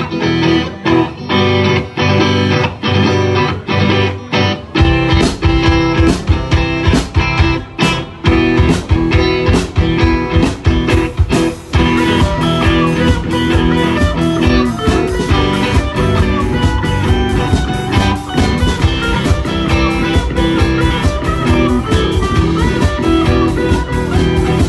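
Live rock band playing an instrumental intro on electric guitars, bass guitar and drum kit, with a steady beat. The low end grows fuller about five seconds in.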